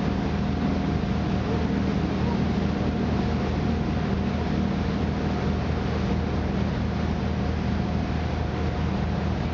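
A boat's engine running steadily at cruising speed, a deep hum with a faint steady whine above it, under a constant rushing noise.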